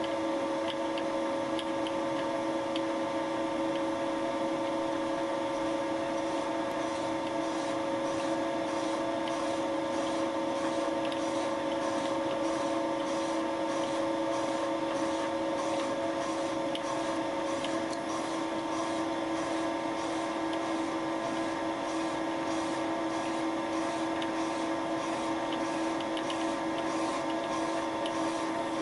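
Thiel Duplex 158 milling machine running steadily as its Wohlhaupter UPA5 boring head takes light cuts in a plastic bearing seat. It makes a steady hum with two held tones, and from about six seconds in a faint regular pulsing comes into the higher hiss.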